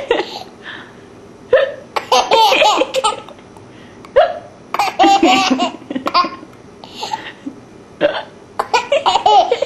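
Laughter in about five short, high-pitched bursts with pauses between, some with hiccup-like catches.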